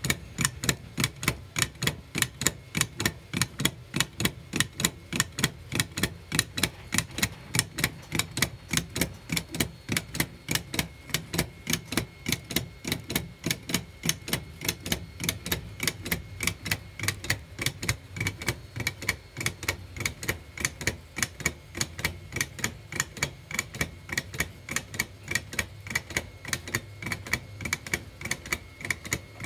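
3D-printed PLA clock escapement running on its spiral mainspring: the plastic escape wheel's teeth click against the pallet fork as the balance wheel swings, giving a steady, even ticking.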